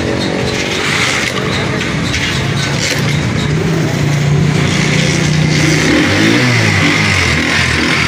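Small single-cylinder engine of a Super Star motorcycle running steadily. About six seconds in, the engine speed rises and falls as the throttle is opened and let off.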